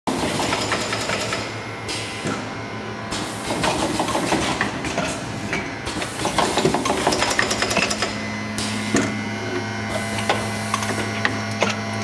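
Automatic tube plugging machine running: a steady hum under rapid, irregular clicks and knocks from its pneumatic cylinders and indexing table, with bursts of air hiss that come and go every second or two.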